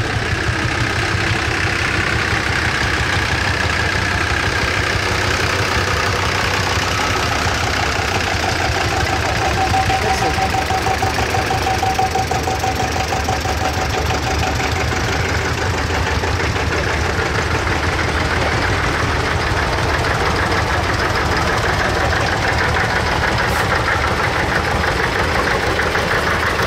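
Several vintage tractors driving slowly past one after another, their engines running steadily at low revs, with a steady whine partway through.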